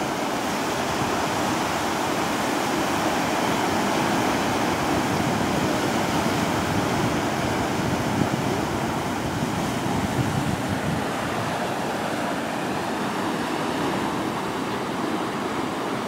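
Sea surf washing and breaking around rocks at the shoreline: a steady rushing wash with no breaks.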